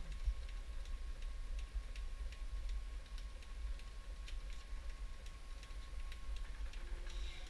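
NxStage PureFlow dialysate machine running while it mixes a batch: a steady low hum with a thin high tone, and light ticking about twice a second.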